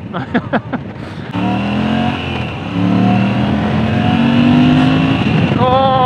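Moto Guzzi V85 TT's air-cooled transverse V-twin accelerating hard under throttle, revs climbing. There is a gear change about two and a half seconds in, then the revs rise steadily again, up to the shift light, near the end.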